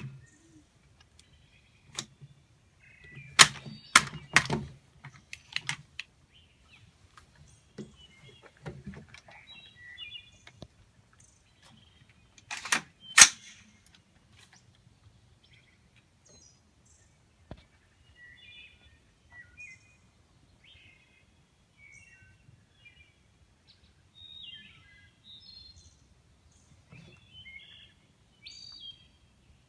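Three sharp cracks of AR-15 rifle shots firing .223 rounds: two about half a second apart a few seconds in, and a third about ten seconds later, with fainter clicks around them. Afterwards, birds chirping.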